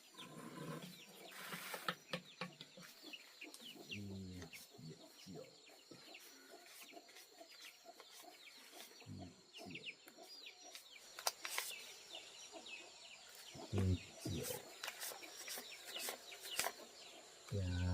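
Chickens clucking, with many short high cheeps scattered throughout and a few low calls; a faint steady high tone runs underneath.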